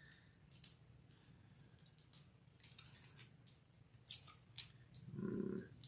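Faint crackling and scraping of a cellophane wrapper on a stack of trading cards as a knife blade cuts and picks at it, in scattered short clicks. A short low hum near the end.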